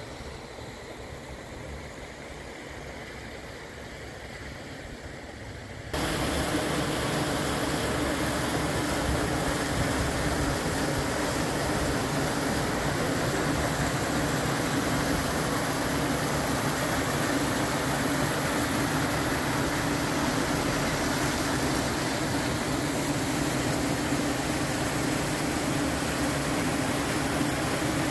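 Steaming hot-spring water rushing steadily through wooden troughs, a continuous even roar. It jumps abruptly to much louder about six seconds in.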